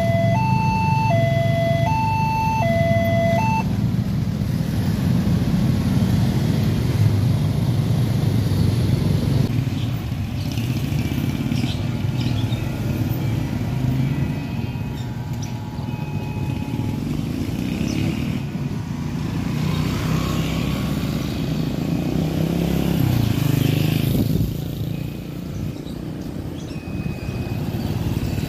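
Railway level-crossing warning alarm, the crossing's newly fitted unit, sounding a buzzy two-tone beep that alternates between a lower and a higher note about every half second; it cuts off about three and a half seconds in as the crossing reopens. Then many motorbike engines run and pass over the crossing as the waiting traffic moves off.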